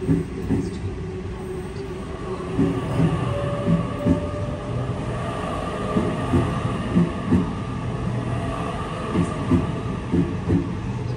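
Sydney Trains Waratah Series 2 (B-set) electric train rolling past at close range: wheels clacking irregularly over rail joints and points over a steady low hum from the train. A thin, slightly rising whine sounds for a couple of seconds a few seconds in.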